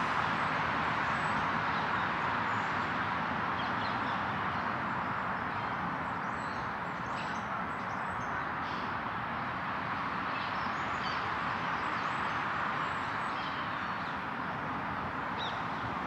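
Steady outdoor background hiss with a few faint, short bird chirps now and then.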